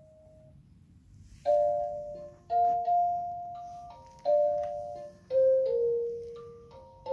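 VTech Starlight Sounds Hippo baby toy playing a chiming electronic melody through its small speaker. The tune starts about a second and a half in, one sustained note after another, each struck sharply and fading.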